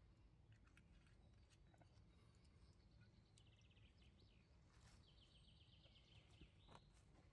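Near silence: faint forest ambience, with two brief, rapid high bird trills in the middle and a few soft clicks.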